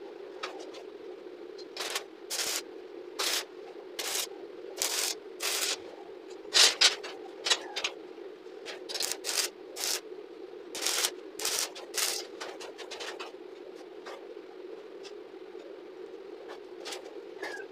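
Bent steel scroll pieces for a window grill being set down and shifted into place on a concrete floor inside a steel frame: a string of short metal scrapes and knocks, loudest about seven seconds in. A steady low hum runs underneath.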